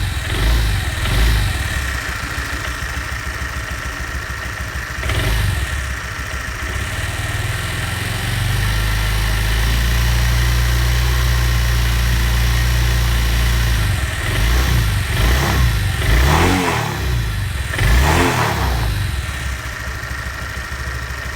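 Honda Vario 150 scooter's single-cylinder engine idling with a steady low drone, blipped to a higher rev briefly around five seconds in and several times in the second half. The drone is the 'ngorok' (snoring) noise that replacing the CVT sliding sheave, rollers and roller housing has not cured.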